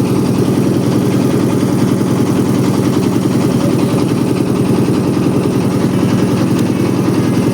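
A small passenger boat's engine running steadily at close range, with a fast, even chugging pulse.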